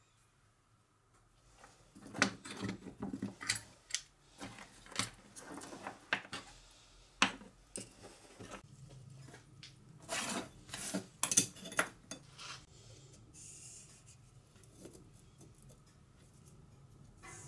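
Plastic battery-pack case and its cylindrical lithium cells being handled on a rubber workbench mat. A run of small, sharp plastic clicks and knocks starts about two seconds in and goes on for some ten seconds, the loudest knock near the middle.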